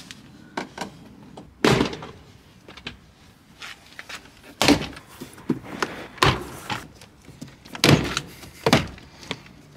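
Mercedes-Benz W205 C-Class rear door panel being pulled off the door, its plastic retaining clips popping loose. It comes as a string of sharp snaps and knocks, the loudest about two seconds in and again about eight seconds in.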